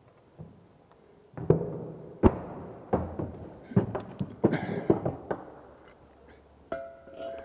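A string of sharp knocks and clunks as plumbing parts and tools are picked up and set down while a wash basin is assembled for its mixer tap. Music comes in near the end.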